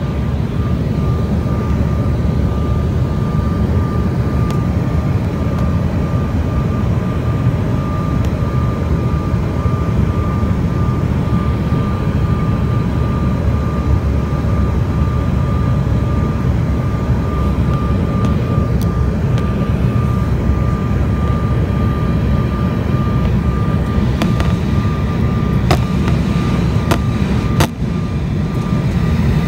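Jet airliner cabin noise on descent: a steady low rumble of the engines and airflow, with a thin steady whine running through it. A few sharp clicks come near the end.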